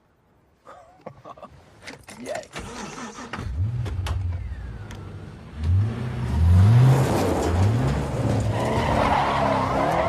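Car engine accelerating hard through several gear changes, its pitch climbing and dropping back with each shift and growing louder.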